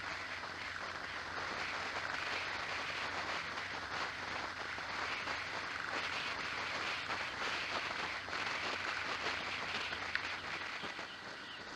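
Steady rush of wind and road noise on the microphone of a camera riding on a moving motorcycle, with the motorcycle's engine running low underneath. It eases a little near the end.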